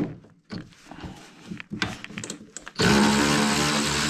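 A few light knocks of parts and tools being handled. Then, near the end, a cordless power ratchet starts up and runs with a steady motor whine, spinning out a chain case bearing retainer bolt.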